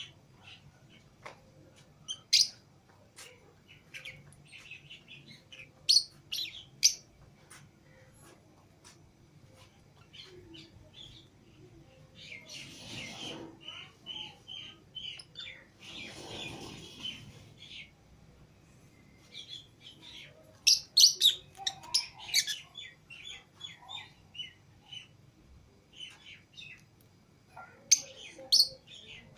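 Pet lovebirds (Fischer's and lutino) chirping, with many short, high chirps coming in irregular flurries. In the middle there are two short stretches of rustling noise.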